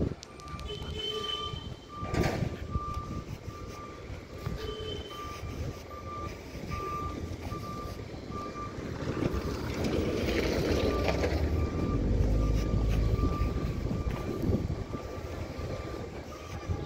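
A vehicle's reversing alarm beeps at an even pace, a bit under twice a second, and stops about eight seconds in. Then a heavy vehicle's engine passes close by, loudest a few seconds later, over steady street traffic.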